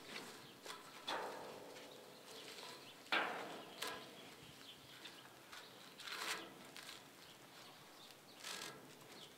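Faint rasps of a rope lead being pulled and worked against a steel pipe fence rail while a tie knot is tied. There are about five short rasps, each starting suddenly and fading quickly, spaced one to two seconds apart.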